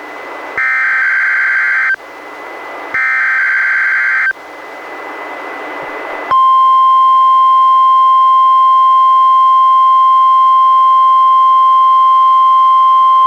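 Emergency Alert System SAME header data played on NOAA Weather Radio: two loud buzzing bursts of digital tones about a second and a half apart, with radio hiss between. About six seconds in, the steady 1050 Hz NOAA Weather Radio warning alarm tone starts and holds at full level.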